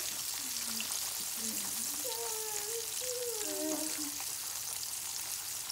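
Coated tilapia pieces deep-frying in hot oil in an electric skillet: a steady sizzle of bubbling oil.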